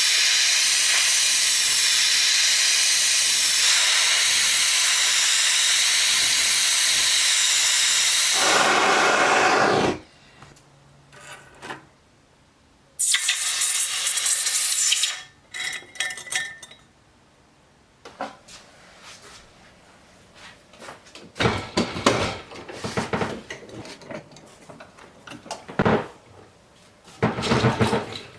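Jeweller's gas torch burning with a steady hiss for about ten seconds, then shut off abruptly, as is typical when annealing silver during wire making. A second hiss of about two seconds follows, then scattered light clinks and knocks of metal tools and silver being handled.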